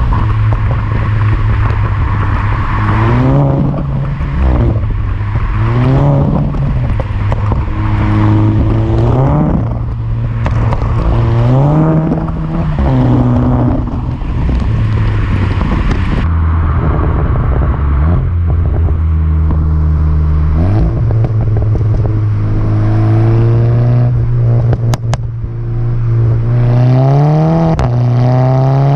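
Volkswagen Golf GTI Mk6's turbocharged 2.0-litre four-cylinder running through an Akrapovič exhaust, its revs rising and falling again and again. Between the revs come pops and crackles on the overrun from a tune set up for crackles.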